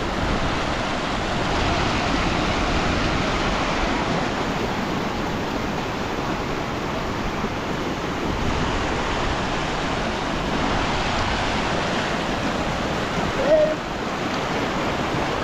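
Muddy floodwater rushing down a rocky gully: a steady, even rushing. A short pitched sound cuts in briefly near the end.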